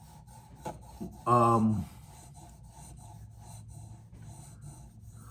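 Sharpening stone of a guided knife sharpener rubbing back and forth along a blade edge, faint and rhythmic at about two to three strokes a second. About a second in, a man gives a short voiced 'mm'.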